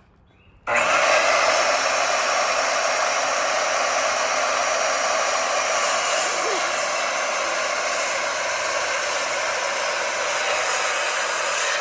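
Electric power tool running steadily while cutting wood, starting a moment in and holding an even whirring pitch throughout.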